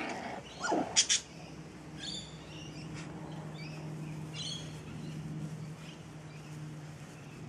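A Lagotto Romagnolo puppy gives a short yelp that falls in pitch about a second in, along with a couple of sharp clicks. After that, birds chirp now and then over a steady low hum.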